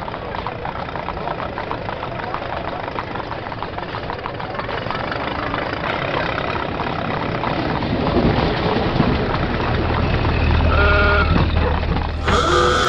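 Engine rumble, like a vehicle running, growing louder and deeper from about eight seconds in, with a brief pitched tone near the end.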